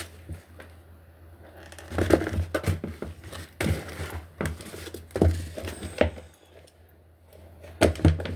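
Irregular clicks, knocks and rustling of grill parts being handled and fitted together during assembly, over a steady low hum.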